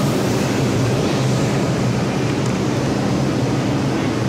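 Steady, loud rumble and low hum on a subway platform beside a stationary R62A subway train with its doors open.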